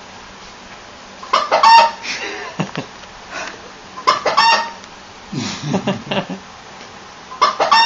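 Chicken sound effect played from a phone app through a speaker: three short matching calls, about three seconds apart.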